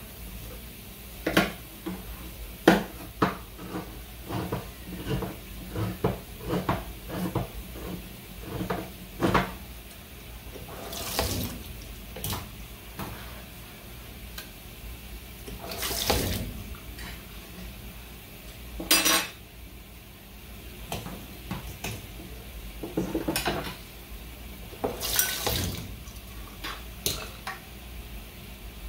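Kitchen dishes, pots and cutlery clattering and clinking in irregular knocks, with a few short rushes of water, as from a tap.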